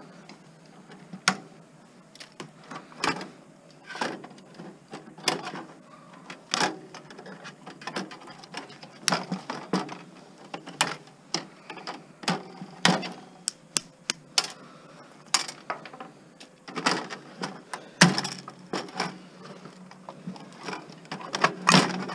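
Irregular clicks, knocks and clatter of a DVD player being taken apart by hand, its metal and plastic parts and screws handled and set down, busier near the end.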